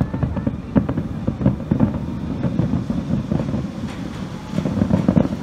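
Aerial fireworks bursting in quick succession: a dense run of sharp bangs and crackles over a steady low rumble.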